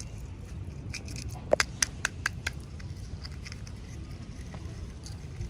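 Small hard objects being handled, with faint crackles and a quick run of about six sharp clicks about a second and a half in, over a low steady rumble.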